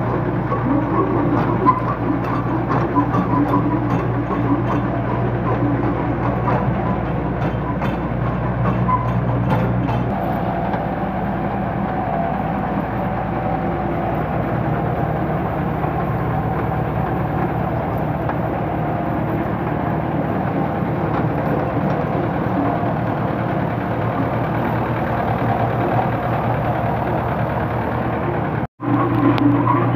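Tractor engine running steadily under load while its rear rotary tiller churns old rice-husk litter, breaking up the clumps, with quick rattling ticks over the engine for roughly the first ten seconds. The sound cuts out for a moment near the end.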